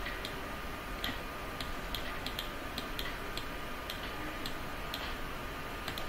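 Faint, light ticks, roughly one or two a second and fairly even, over a low steady background hum.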